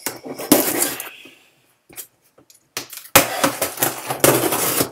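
Cardboard shipping box being opened by hand: a small blade slitting the packing tape, with cardboard scraping and rustling. There is a short noisy stretch about half a second in, then a longer, louder one from about three seconds in.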